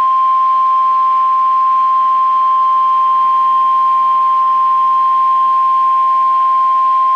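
NOAA Weather Radio 1050 Hz warning alarm tone: a single loud, steady, unbroken tone. This is the attention signal that precedes a broadcast warning, here a severe thunderstorm warning.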